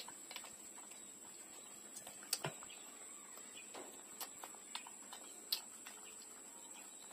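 Puppies suckling from their mother: faint, irregular wet sucking and smacking clicks, a few sharper ones standing out.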